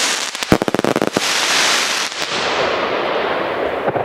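A firework hissing loudly as it throws sparks, with a fast run of sharp crackling pops in the first second. The hiss grows duller toward the end.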